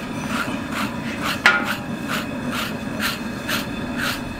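Metal bell-type hog scraper scraping hair off the scalded skin of a whole hog, in quick repeated strokes of about two or three a second, with one harder stroke about a second and a half in.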